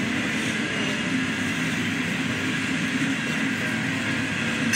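A freight train's open-top Herzog cars rolling past, a steady rumble and rattle of wheels on the rails with no breaks or changes.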